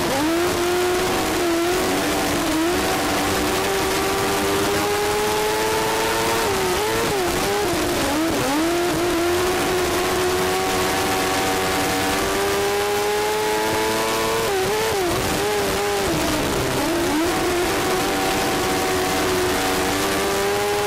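1000cc micro sprint car motorcycle engine at racing speed, heard from the cockpit. Its pitch climbs steadily down each straight, then dips and wavers briefly about four times as the car goes through the turns.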